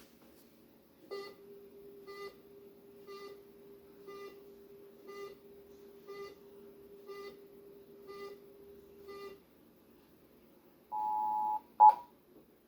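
Emergency Alert System test tones: a steady low tone with a short beep about once a second, nine times. About 11 s in, the two-tone EAS attention signal sounds for about half a second. A louder, sharper burst of it follows just before the end.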